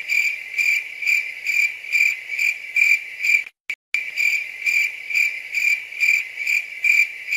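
Cricket chirping sound effect: a high chirp repeating about twice a second, with a brief dead cut-out just past the middle.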